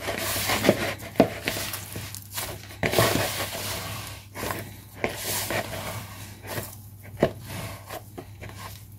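A hand kneading crumbly maida-and-butter dough in a plastic bowl: irregular squishing, rustling and scraping of the dough against the bowl's sides.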